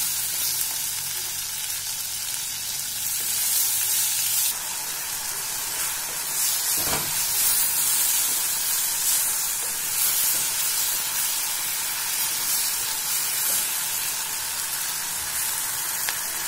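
Chopped onions, tomatoes and chillies sizzling as they sauté in a clay pot, stirred with a wooden spatula, with one light knock about seven seconds in.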